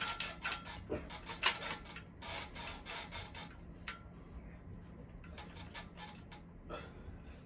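Metal dip bar push-up station clicking and creaking under push-ups, in bursts of rapid clicks with each rep: a burst right at the start, another about two seconds in, and a third near the end.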